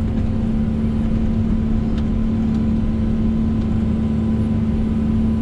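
John Deere excavator's diesel engine running at a steady pitch while the bucket digs the trench, heard from inside the cab as an even drone with a strong low hum.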